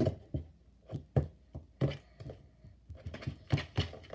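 Slime mixture of glue, shaving foam and laundry detergent being stirred in a bowl: irregular sharp clicks and knocks, two or three a second, with a short lull about two and a half seconds in.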